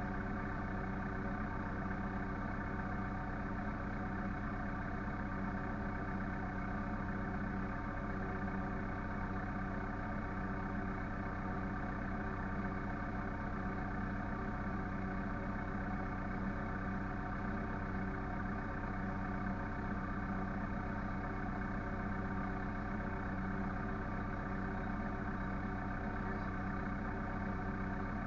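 Farm machinery engine running at a steady speed: a constant drone with no change in pitch.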